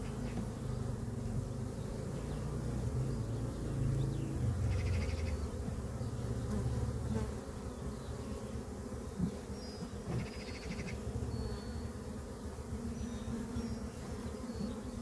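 Honey bees buzzing around an opened hive: a steady, dense low hum from the colony and the bees in the air as frames are worked.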